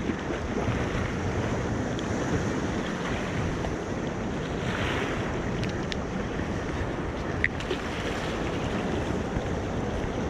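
Sea surf and wind buffeting the microphone, a steady rushing noise, with a few light clicks, the sharpest about seven and a half seconds in.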